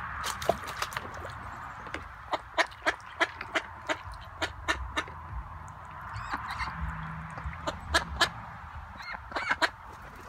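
Ducks quacking in quick runs of short calls, about three a second, with pauses between the runs.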